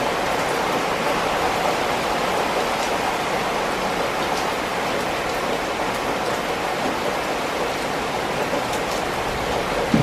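Steady rain falling on concrete and wet tiles, an even hiss with a few faint ticks of drops. A brief thump right at the end.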